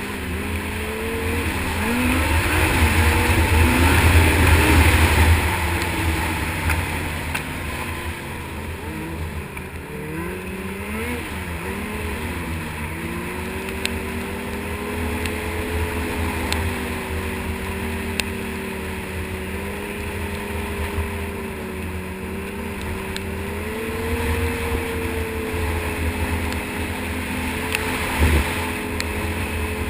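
Snowmobile engine running while ridden, revving up and louder for a few seconds early on, its pitch rising and falling around the tenth second, then holding a fairly steady cruising note. A short knock sounds near the end.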